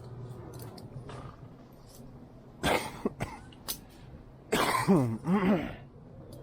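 A person coughing: one short cough a little under three seconds in, then a longer, louder bout of coughing about a second and a half later.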